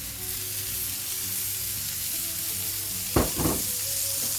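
Halved tomatoes and mushrooms sizzling steadily in hot olive oil in a frying pan. Two short dull knocks a fraction of a second apart come about three seconds in.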